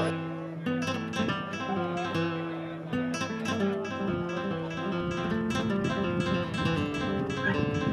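Background music on acoustic guitar: plucked melody notes with strummed chords.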